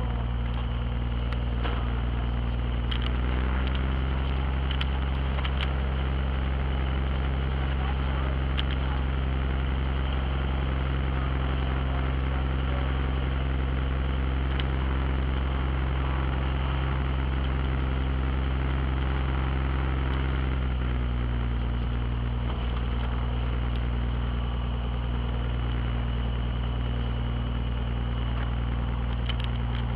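Light aircraft's piston engine and propeller running steadily at low taxi power, heard from inside the cabin. The engine note shifts slightly about three seconds in and again about twenty seconds in.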